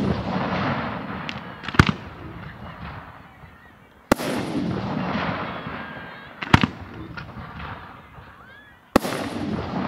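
Aerial firework shells bursting in a display: sharp bangs about every two and a half seconds, four in all, with a few smaller cracks between them. After each bang comes a long fading tail of crackle and echo.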